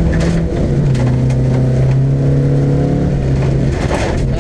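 Mercedes-Benz 190 Diesel rally car's engine running hard, heard from inside the cabin over the rumble of tyres on gravel. The engine note steps down in pitch about half a second in, then holds steady.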